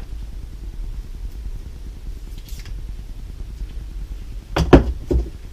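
Hand tools being picked up off a workbench: a few quick, sharp knocks near the end, over a steady low hum.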